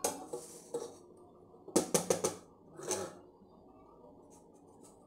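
Aluminium cake tin knocking and clinking against a steel wire cooling rack as it is turned upside down to release the cake, with a quick run of sharp knocks about two seconds in.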